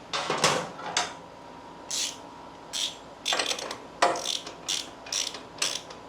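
Ratchet wrench (a torque wrench on its ratchet head) ratcheting in about nine short strokes, with irregular pauses between them, as the rear axle nut is tightened.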